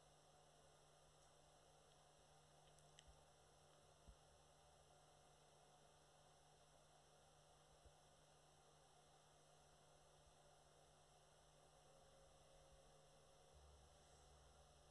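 Near silence: room tone with a faint steady electrical hum and hiss, and two tiny clicks.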